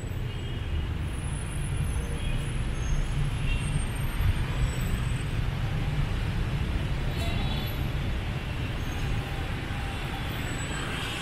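Street traffic noise with a steady low rumble.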